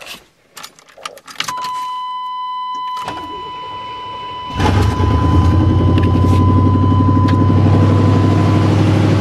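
Clicks in the cab of a 1991 Chevy K1500 pickup and a steady electronic warning tone. Then the engine is cranked briefly and catches about four and a half seconds in, settling into a loud, even idle. The exhaust is open: the manifold donuts leak and there is no muffler or tailpipe.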